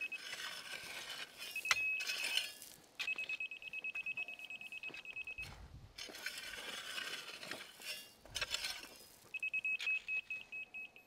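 Laser-level receiver on a grade rod beeping rapidly, several beeps a second, in stretches that stop and start as the rod is moved over the gravel. Between the beeping, a rake scrapes through gravel.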